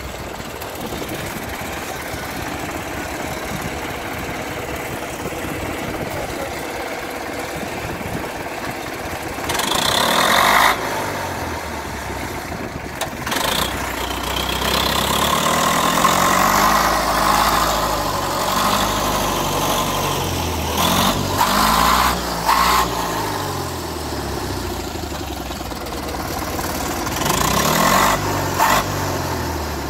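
Diesel engine of a TAF articulated forestry skidder running, revving up and falling back several times as the machine is driven, with a few short louder bursts at the peaks.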